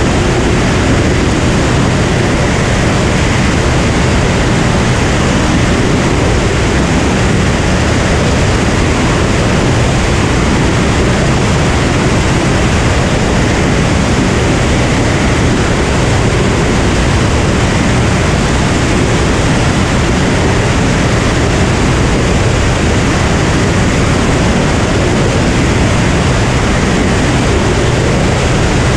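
Cirrus SR22 light aircraft in cruise: the drone of its six-cylinder piston engine and propeller under a loud, even rush of air, steady and unchanging throughout.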